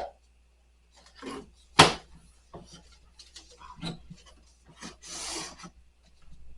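Pantry items being set down and slid about on shelves: a few sharp knocks, the loudest about two seconds in, scuffs and rubbing between them, and a half-second scrape or rustle about five seconds in.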